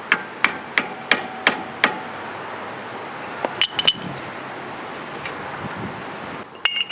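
Six sharp, evenly spaced hammer taps, about three a second, on a flathead screwdriver driving at the hub's center cap to pop it off. A few ringing metallic clinks follow about halfway through and again near the end.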